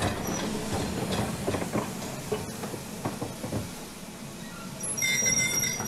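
Steam train sound effect: the train chugging and rattling along the rails, fading away, then a short steam whistle toot near the end.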